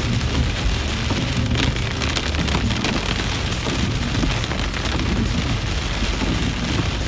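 Heavy rain hitting a moving car's windshield, heard from inside the cabin as a dense patter with scattered sharp ticks over a steady low road rumble. The driver takes the drops for tiny hail pellets.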